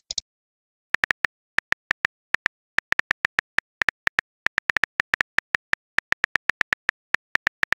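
Virtual keyboard typing sound effect from a texting-story app: a run of short, sharp clicks all at the same pitch, coming at an uneven pace of a few a second as a message is typed out.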